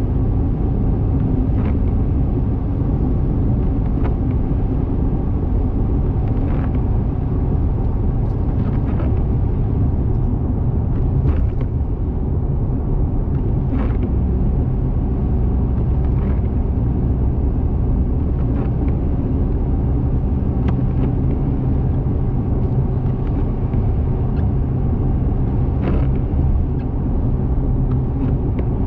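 Car cruising on a highway: a steady low rumble of road and engine noise, with faint brief ticks every few seconds.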